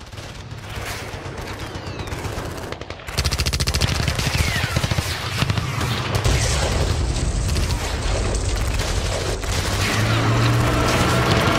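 Battle sound: gunfire with rapid machine-gun bursts that become dense about three seconds in, over a steady low hum.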